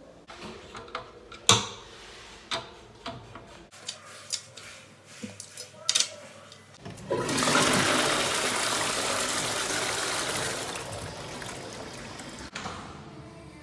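A few clicks and knocks of handling, then a toilet flushing about seven seconds in: a loud rush of water that slowly dies away over about five seconds.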